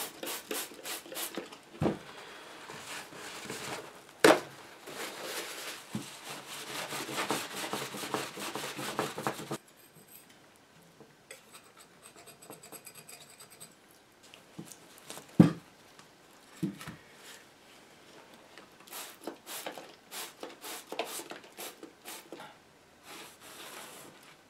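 Hand cleaning of a phenolic radio front panel: steady rubbing and wiping with a few sharp knocks, which stops abruptly about ten seconds in. Quieter scraping and scratching strokes follow, with a hard knock on the panel partway through.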